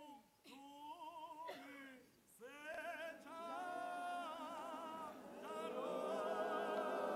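A woman's voice sings a hymn line alone with a wavering vibrato, then other women's voices come in. By the end a congregation of women is singing together, louder and fuller.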